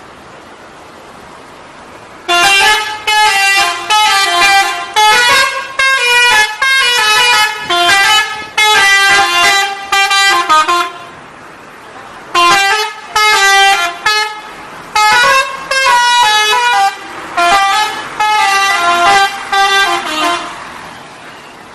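A bus's 'telolet' musical horn playing a tune of short pitched honks that step up and down in pitch, in two loud runs of about eight seconds each with a short break between, starting about two seconds in.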